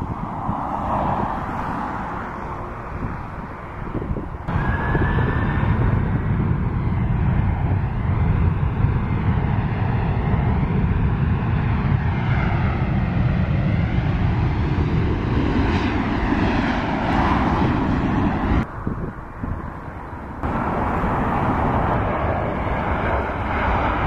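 Airbus A320 jet engines running as the airliner taxis: a steady engine noise with slowly sweeping tones and a brief rising whine. It drops and jumps sharply a few times.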